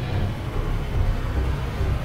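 A loud, steady low rumble with a rough hiss over it: a horror-soundtrack drone.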